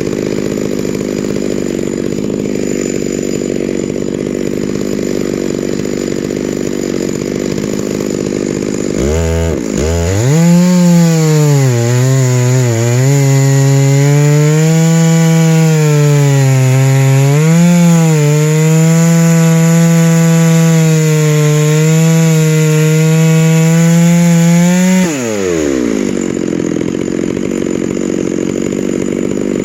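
Chainsaw mill's two-stroke chainsaw ripping a white spruce log at full throttle. About nine seconds in its engine note turns into a clear high whine that sags and recovers with the load for some fifteen seconds, then falls back to a noisier, steady run.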